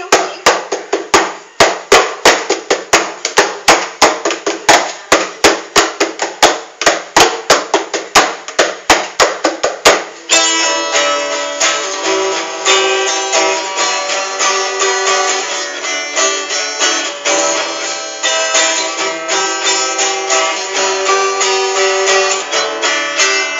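Two acoustic guitars strummed together in an instrumental passage of a song: crisp, even chord strokes about three a second for the first ten seconds, then fuller, denser strumming with the chords ringing on.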